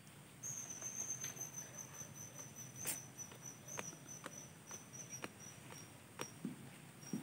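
A cricket's steady high-pitched trill, starting about half a second in and stopping about six seconds in, with a few sharp clicks scattered through it.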